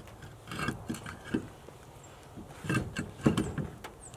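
Scattered knocks and clunks of handling parts or tools, loudest about three seconds in, with a few brief high chirps near the end.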